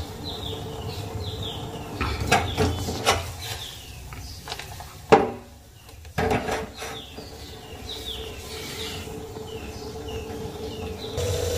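Knocks and clinks of a stainless steel saucepan and spoon on a gas stove as sugar goes into the chai and the pan is handled, the sharpest knock about halfway through. A steady low hum runs underneath, and birds give short falling chirps in the background.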